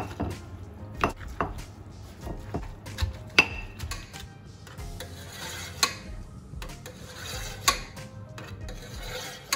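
Wooden pestle pounding and mashing papaya salad in a stone mortar: irregular knocks of wood on stone with rubbing and scraping between them, the loudest knock about a third of the way in.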